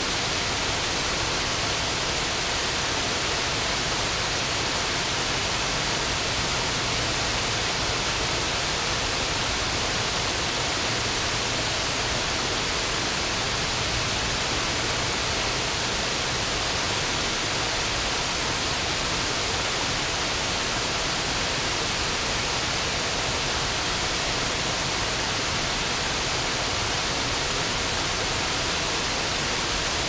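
Waterfall rushing steadily as a river spills over a low dam and runs through rocky rapids below, an even hiss that does not change.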